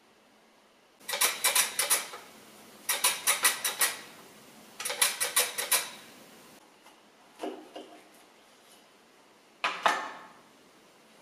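A lemon rubbed quickly back and forth over the blade of a plastic mandoline slicer, cutting off the peel: three bursts of rapid scraping strokes, about a second each. A sharp knock follows near the end.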